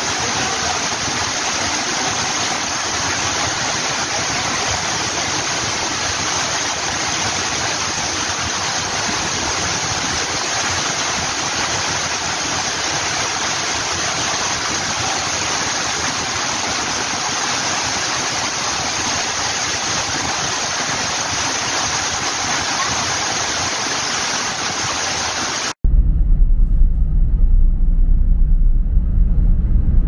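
Steady rushing of water. About 26 seconds in it cuts off abruptly and is replaced by a loud, low rumble.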